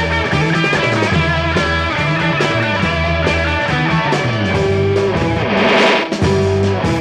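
Rock band music in an instrumental passage: electric guitar notes over a repeating bass line, with a brief louder swell about six seconds in.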